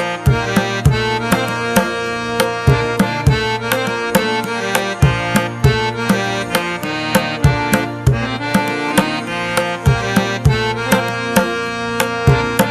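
Background music: a steady drum beat under a sustained melodic line.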